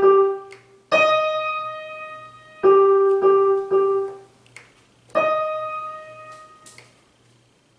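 Digital piano notes played one at a time: a higher note, near D sharp 5, struck and left to die away twice, with three short repeated strikes of a lower note between them, plus a faint click or two. This is a test of the effect-level setting, which does not change the sound.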